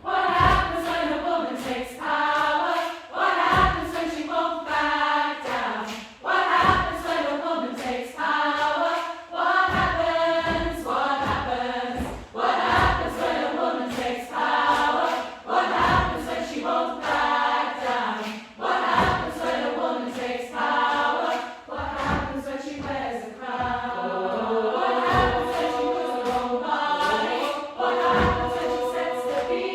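Upper-voice chamber choir singing in harmony, with regular low thumps beneath the voices.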